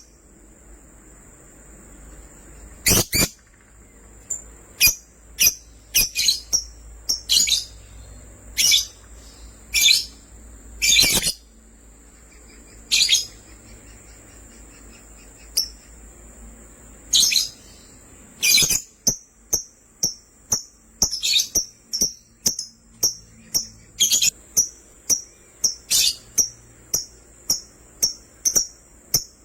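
Lovebirds chirping: loose, sharp, shrill calls, then about two-thirds of the way through a quick, regular run of short chirps at about two a second.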